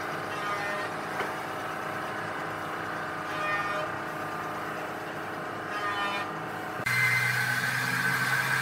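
Woodworking machinery running with a steady, tonal hum. About seven seconds in it changes abruptly to a louder sound with a higher whine.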